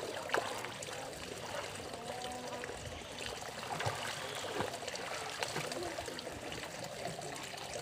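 Pool water splashing and lapping as a child in a life jacket paddles and kicks through it: small, irregular splashes over a steady watery wash.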